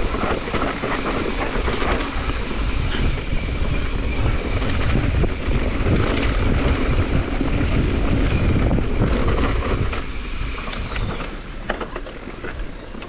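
Wind buffeting the microphone, a loud steady rumble mixed with scattered clicks and rattles, easing off near the end.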